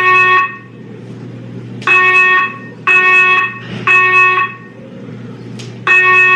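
Loud buzzy electronic beeps, each about half a second long, repeating about once a second with a beat skipped now and then.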